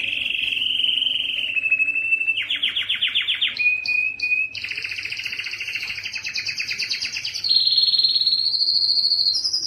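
Domestic canary (male) singing a continuous song of distinct phrases, or tours. Fast trills of rapidly repeated notes alternate with held whistled tones, changing pitch every second or two, the last phrase a higher rolling trill.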